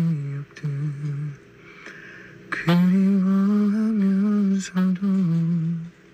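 A man humming a melody: a few short notes, then about three seconds in a long held note that wavers slightly before stopping shortly before the end.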